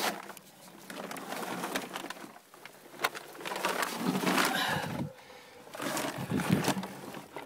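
Scraping and shuffling in dirt as a person climbs down into a hole under a house slab, with a few short, low voiced sounds about four and six seconds in.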